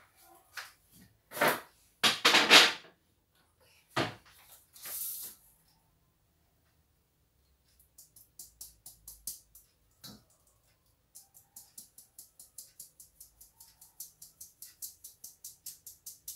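Knocks and clatter of a glass jar and kitchen bowls being handled, loudest about two seconds in. From about eight seconds, flour being sifted through a metal mesh sieve: a fast, even run of short swishes, about four to five a second, with a short break near the middle.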